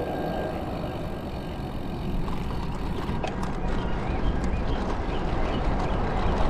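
Wind and road noise from riding a bicycle along a highway: a steady, gusty rush over the microphone that grows a little louder near the end.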